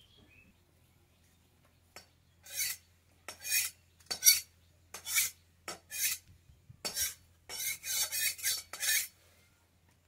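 Short rasping scrapes, about a dozen uneven strokes starting a couple of seconds in and coming faster together near the end.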